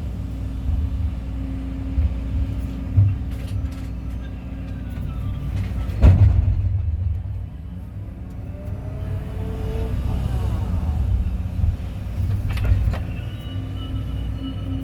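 Kobelco excavator working: the diesel engine runs steadily under load while the hydraulics whine, rising and falling in pitch. A few clunks of the bucket or boom, the loudest about six seconds in.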